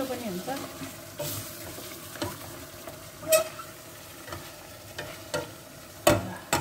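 A spatula stirring chicken curry in a stainless steel pot, knocking and scraping against the pot several times, loudest a little over three seconds in and twice in quick succession near the end, over a faint sizzle of the frying food.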